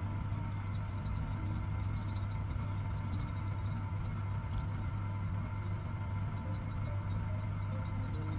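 A steady low mechanical hum with a few faint, steady higher tones above it; it does not change.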